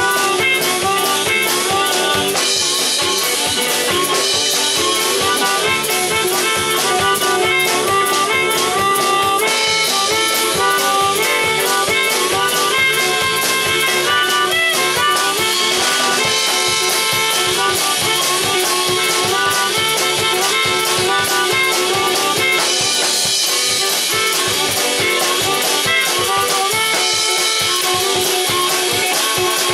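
Live blues band music: an amplified harmonica played through a cupped bullet microphone, holding and bending reedy notes over a steady drum beat.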